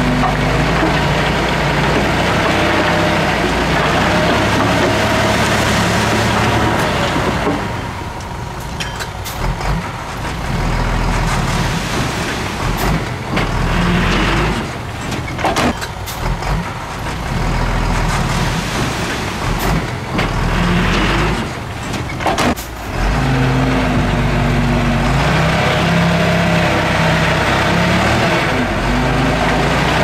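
Diesel engine of heavy earthmoving machinery running loudly. It eases off for a stretch in the middle, where several sharp knocks sound, then runs louder again.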